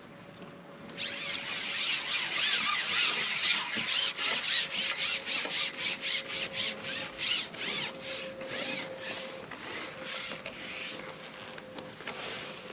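Long carbon fishing pole being shipped hand over hand, its sections sliding with a run of rasping rubbing strokes, about two to three a second, starting about a second in and growing fainter near the end.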